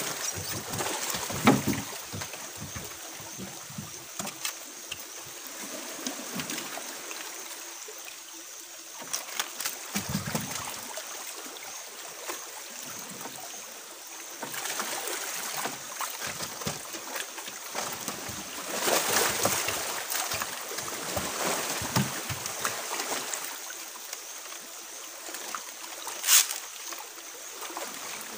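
Water sloshing and trickling against the hull of a small wooden fishing boat, with scattered knocks and splashes as a gill net is handled and paid out over the side. One sharp knock stands out near the end.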